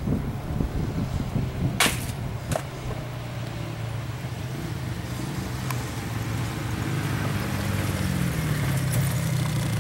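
Small off-road engines, a child's dirt bike and an ATV, running steadily at low revs, their pitch drifting a little near the end. Two sharp knocks about two seconds in.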